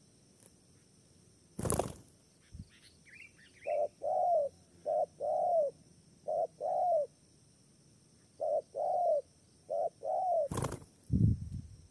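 Spotted dove cooing: about five two-note phrases, each a short coo followed by a longer one, repeated every second and a half or so. Two sudden loud thumps come about two seconds in and near the end, and faint high chirps from a smaller bird come about three seconds in.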